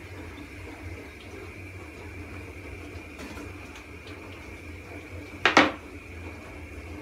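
Pişi dough frying in a pan of hot oil, a steady sizzle. About five and a half seconds in there is a sharp double clatter as metal tongs are set down on a wooden board.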